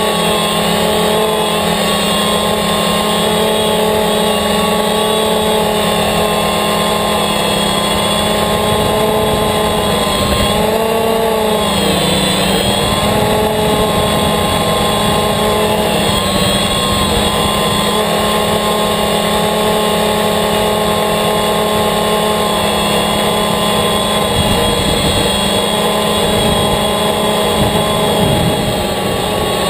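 DJI Phantom quadcopter's four electric motors and propellers running with a steady buzzing whine, heard from the GoPro mounted on the drone. The pitch dips and wavers briefly about eleven seconds in as the drone adjusts its flight, and wind rumbles unevenly on the microphone underneath.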